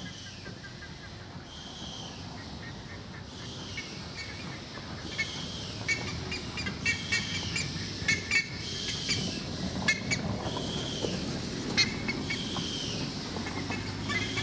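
Steam locomotive No. 620 moving slowly over pointwork with steam hissing from around its cylinders, its low rumble growing louder as it comes closer. A short high squeak repeats about every second and a half, and sharp clicks come in the second half.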